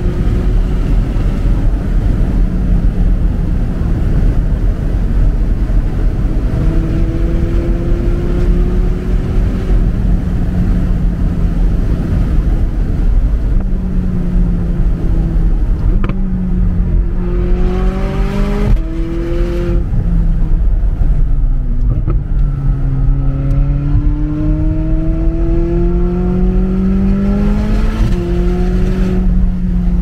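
McLaren 600LT Spyder's twin-turbo V8 heard from inside the open-top car at speed. The engine note climbs as the car accelerates through the gears, with sharp drops in pitch at upshifts about two-thirds of the way through and again near the end. A heavy low wind rumble runs underneath.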